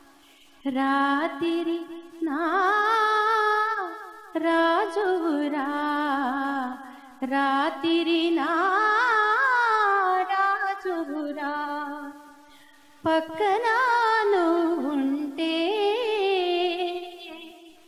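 A woman sings a Telugu song solo and unaccompanied. She sings in phrases of a few seconds, with ornamented pitch slides and wavers, and pauses briefly between lines.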